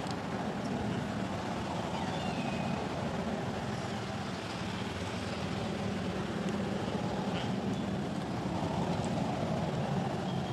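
Steady low rumble of distant motor traffic, with a few faint short high chirps.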